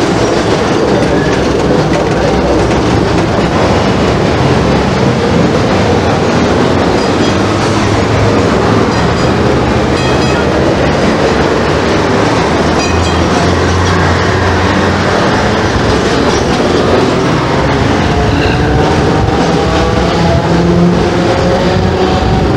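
Hong Kong double-decker tram running along street rails, with a steady rumble and clatter of wheels on track. Near the end a motor whine slowly rises in pitch.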